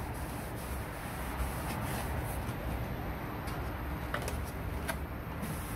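Steady low background hum, with a few faint clicks.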